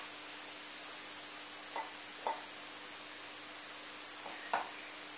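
A silicone-tipped spatula knocking and scraping against a wok and a ceramic bowl as stir-fried tofu and vegetables are served out: three short knocks, the loudest near the end, over a faint steady hiss.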